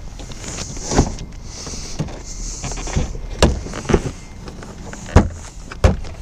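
A truck's interior door panel being fitted onto the door: rubbing and rustling against the door, with about five sharp knocks or snaps as it is pressed and seated into place.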